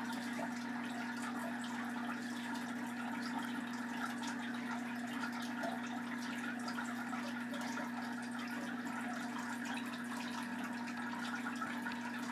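Steady low electrical hum and hiss, with faint scratchy rubbing of an oil pastel being stroked across drawing paper.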